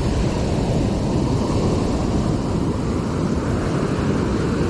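Steady wind rumble on the microphone over the wash of surf breaking on the beach.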